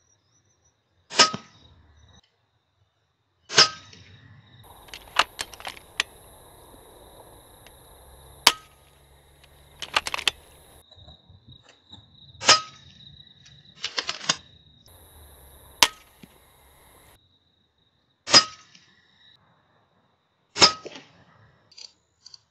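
A .22 FX Impact M3 PCP air rifle firing slugs: five sharp cracks spaced several seconds apart, with fainter clicks in between.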